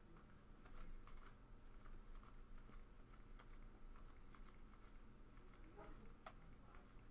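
Faint, irregular soft ticks and slides of trading cards being flipped through by hand, one card at a time from the front of the stack to the back.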